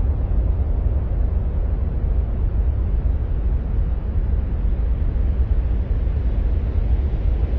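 Steady, even noise with most of its weight in the deep bass and no distinct events: an ambient noise track presented as the sound of Mars.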